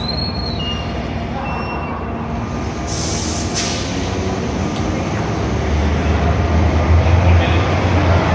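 Road noise and a low rumble from a vehicle driving, heard from inside it. The rumble grows louder from about halfway through, and there are a few brief high-pitched squeaks in the first two seconds.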